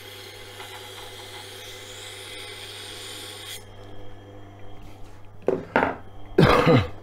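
Tormek wet grinder's motor humming while a kitchen knife is ground on its 1000-grit CBN wheel: a steady scraping hiss that stops suddenly about three and a half seconds in as the blade comes off the wheel. The motor keeps running under a few loud knocks and handling noises near the end.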